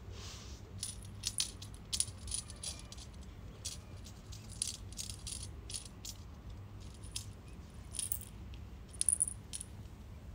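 Irregular light rattling and clicking as a kitten bats a pompom wand toy about on a glass tabletop. There are small jingly taps, with a cluster of louder ones near the end.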